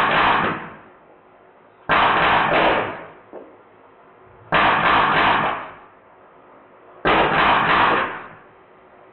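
Drozd Blackbird BB machine gun, converted to full-auto with a Sergey board and run on high-pressure air, firing short full-auto bursts of about a second each. There are three bursts roughly two and a half seconds apart, after the tail of one at the start.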